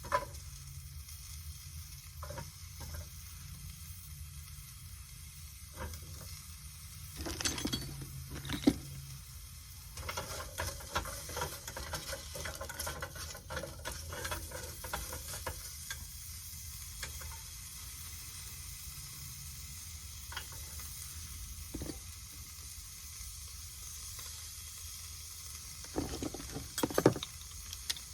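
Food frying in a pan, a steady sizzle, with scattered clicks and knocks of utensils and a few louder knocks near the end.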